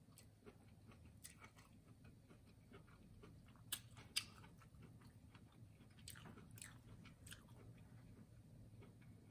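Faint close-miked chewing of corn on the cob, with scattered wet mouth clicks; two sharper clicks come about four seconds in and a few more around six to seven seconds.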